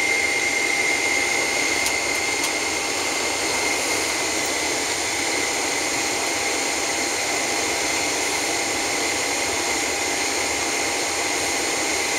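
Steady cabin noise inside a Boeing 767-400 with its engines shut down: an even hiss of ventilation air with a thin, steady high whine.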